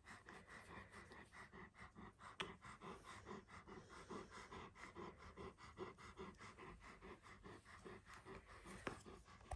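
Alaskan malamute panting softly through an open mouth in a quick, even rhythm of breaths. The dog is panting to cool off in the heat.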